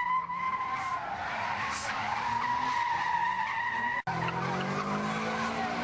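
Car tyres squealing steadily as a car spins donuts on tarmac. After a sudden break about four seconds in, a car engine revs up over a more broken squeal.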